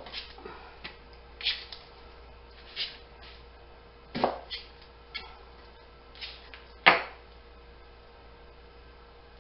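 Kitchen knife cutting an onion and knocking on the cutting board: about ten sharp knocks at an uneven pace, the loudest a little after the middle, then stopping for the last two seconds.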